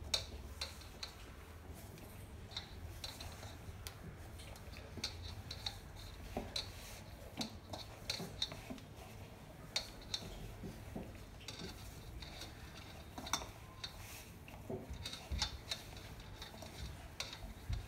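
Hands kneading fairly stiff dough in a stainless steel bowl: faint, irregular taps, clicks and scrapes of the bowl and the dough being pressed and turned.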